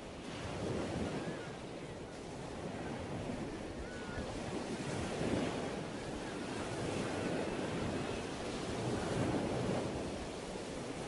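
Ocean surf washing in, a steady rush that swells and fades every few seconds.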